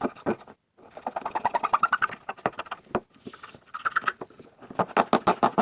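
Rapid scratchy clicking and grinding from hands working a part of an old Ensign Ful-Vue box camera, with two brief squeaks.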